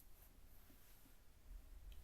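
Near silence: room tone with faint hiss and low hum in a pause between spoken sentences.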